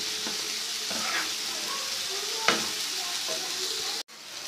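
Goat liver in tomato masala sizzling on a tawa while being stirred and fried, with a steady hiss and occasional scrapes of the spatula, the sharpest about two and a half seconds in. The sound breaks off abruptly near the end.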